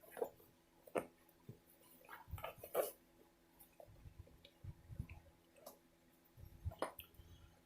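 Faint scattered clicks and light knocks of small hand tools, pliers and a wrench, being handled and set down.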